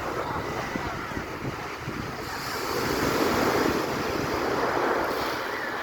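Stormy sea surf breaking and washing on the shore, with wind buffeting the microphone. The surge swells louder about halfway through.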